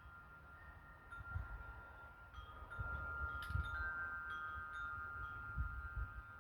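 Soft chime-like ringing, several clear tones starting one after another and ringing on, over a low uneven rumble from a ceiling fan running on low speed.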